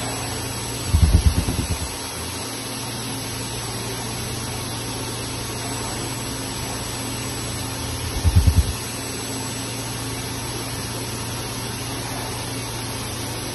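Multi-head XYZ robot ultrasonic welding machine running with a steady low hum, broken twice by a short, loud, low pulsing burst: once about a second in and again about eight seconds in.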